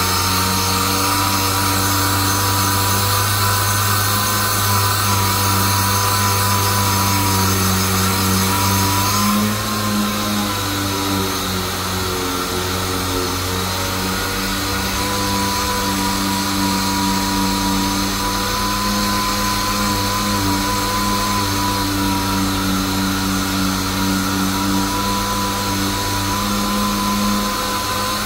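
Handheld power sander with a hose, running steadily on a car's rear quarter panel, with a high, slightly wavering whine over a lower hum. Part of the low hum drops away about nine seconds in.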